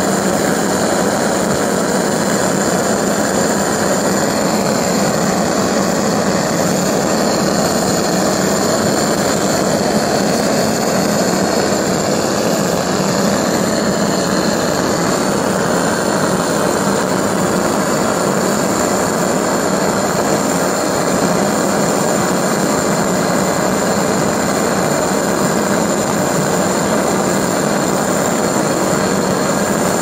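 Home-built Tesla-style pulse detonation engine, water-jacketed and fed LPG and compressed air, running continuously in resonance. It makes a loud, steady noise with a thin high whistle held over it.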